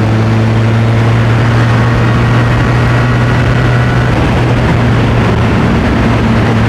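Motorcycle engine running at a steady speed while riding, its pitch holding level, under heavy wind noise.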